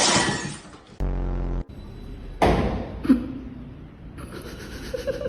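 A crash of something breaking, with glass shattering, fading out over about a second; another sudden crash about two and a half seconds in.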